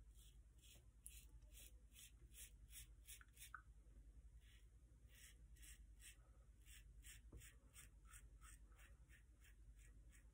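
Faint scraping of a 1960 Gillette Flare Tip double-edge safety razor with a Super Iridium blade cutting lathered stubble in short, quick strokes, about three a second, with a brief pause near the middle.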